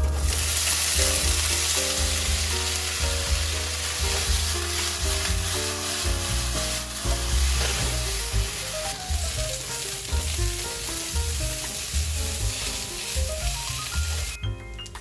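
Diced potatoes sizzling loudly in hot sesame oil in a nonstick wok, the hiss starting as they drop in and going on while they are stirred with a silicone spatula, then cutting off suddenly near the end. Light background music plays underneath.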